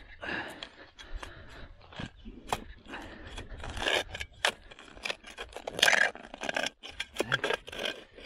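Steel spade driven into gravelly soil: a series of scrapes and crunches as the blade grinds against stones, loudest about four and six seconds in. The gravel makes the spade hard to push in.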